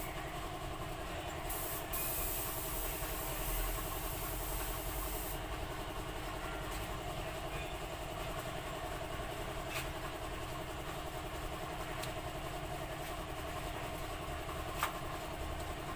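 A steady mechanical hum with a fluttering, engine-like pulse, like a small engine idling. About two seconds in there is a few-second stretch of hiss, and there are two faint clicks later on.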